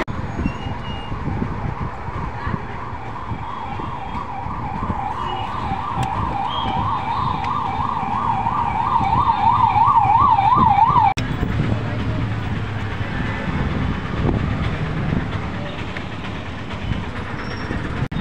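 A siren wailing up and down quickly, about three swings a second, growing louder over several seconds and then cutting off abruptly about eleven seconds in, over a steady low background rumble.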